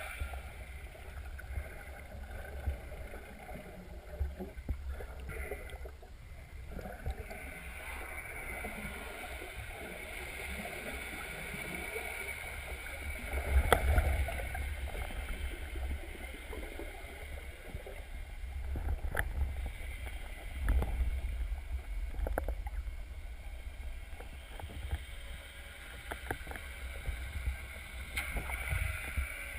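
Water noise with a low rumble, broken by a few sharp knocks, the loudest about halfway through.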